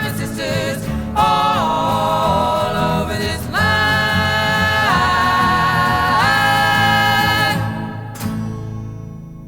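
Music: a song ends on long held sung notes with vibrato, stepping up in pitch twice, then dies away, with a short click as it fades.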